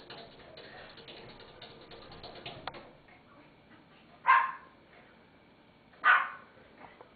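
Two short, harsh barks about two seconds apart, the first about four seconds in.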